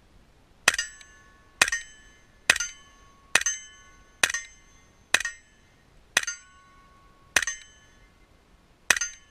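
Nine suppressed rifle shots of subsonic 300 Blackout through a YHM Phantom M2 suppressor, fired about one a second. Each is a sharp crack with the short metallic ring of a steel target being hit.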